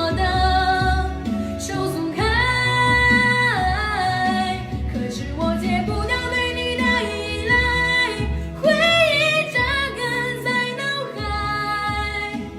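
A sad Chinese pop ballad with a woman singing long held notes over a steady bass beat.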